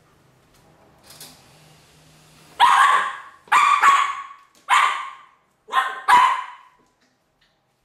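A West Highland White Terrier barking at a spiny chestnut burr: a run of about six barks starting a little over two seconds in, some in quick pairs.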